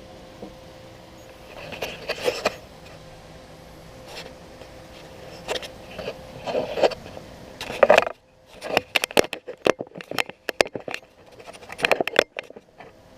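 Hand-handling noises: plastic clicks, taps and scrapes as taillight bulbs and the taillight housing are moved about, with a quick run of sharp clicks and taps in the second half.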